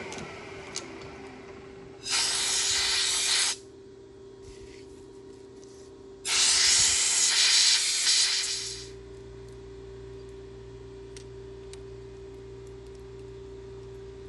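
Compressed-air blow gun hissing in two blasts, about a second and a half and then two seconds long, over a steady tone of shop machinery.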